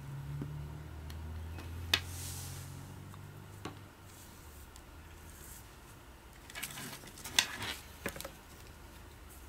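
Sony a5100 mirrorless camera being handled and set down on a wooden desk: a sharp knock about two seconds in, then a cluster of clicks and rustles near the end.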